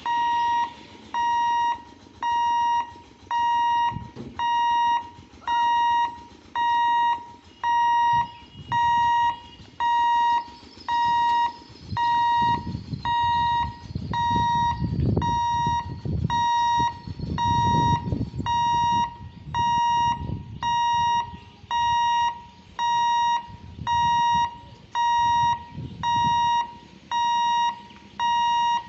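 Railway level-crossing warning hooter beeping steadily, one high electronic tone just under once a second, each beep a little over half a second long: the warning that the gate is closed for an approaching train. A lower rumble swells and fades in the middle.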